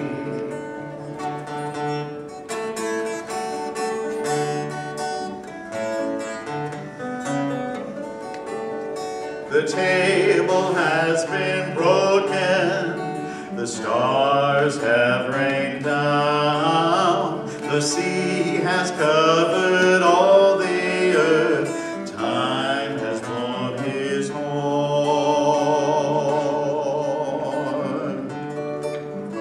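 A song on acoustic guitar, the guitar playing alone at first, with a voice singing over it from about ten seconds in.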